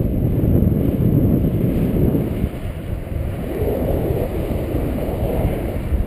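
Wind buffeting the microphone of a camera on a flying tandem paraglider: a steady, loud low rumble of airflow noise from the glider's forward speed.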